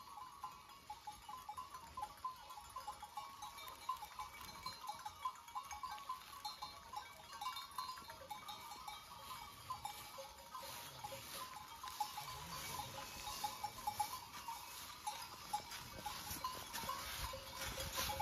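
Bells on a herd of goats clinking irregularly as the animals walk, with hooves rustling through dry fallen leaves, getting louder in the second half.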